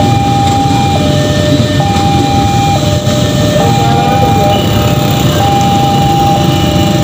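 Railway level-crossing warning alarm sounding a two-tone signal, a high and a low note alternating about once a second, over the low rumble of an electric commuter train passing through the crossing. The alarm is the sign that a train is at the crossing and the gates are down.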